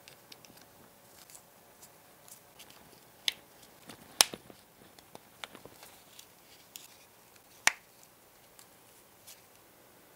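Small plastic parts of a 1:18 scale model car's interior being handled and pressed into place with gloved hands: scattered light clicks and taps, with three sharper clicks about three, four and seven and a half seconds in, the one near four seconds the loudest.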